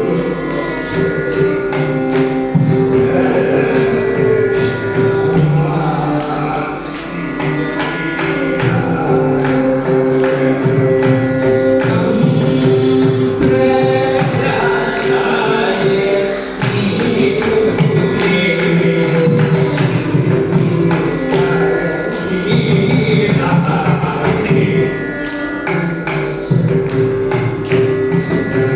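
Live Carnatic music: a male voice singing with violin accompaniment, over a steady run of mridangam drum strokes.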